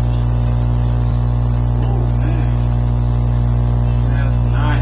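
Loud, steady electrical mains hum, with faint brief sounds barely rising above it about two seconds in and near the end.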